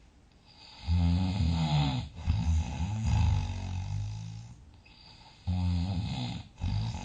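A sleeping person snoring loudly, low-pitched. One long snore starts about a second in and fades away; another starts abruptly near the end.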